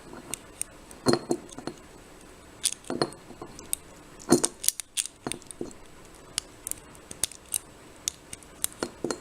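Lever pick and tension tool working inside a Silverline four-lever padlock: irregular small metal clicks and ticks as the levers are felt.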